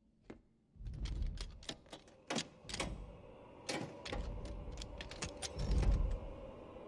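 Metal lever door handle and latch clicking and rattling as the handle is worked down from the other side of the door, in the film by a velociraptor opening it. The sharp clicks run for a few seconds over a low rumble that swells near the end.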